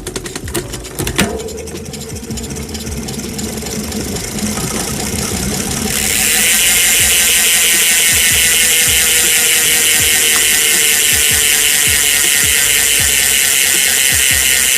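Pasak four-pawl mountain bike rear hub freewheeling at high speed. Rougher, quieter drivetrain noise at first, then about six seconds in a loud, steady, fast ratcheting buzz of the pawls sets in.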